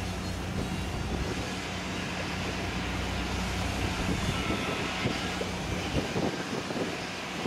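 Marine diesel engine running with a steady low drone that drops away about six seconds in, over a hiss of wind and water.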